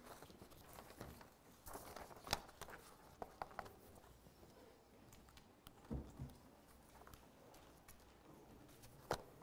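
Paper notes being handled and shuffled on a lectern close to its microphone: faint rustles and small clicks, with a sharper tap a little over two seconds in and a dull low thump about six seconds in.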